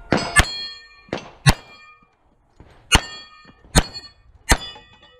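A series of sharp metallic clangs, about one a second, each ringing on briefly like struck steel.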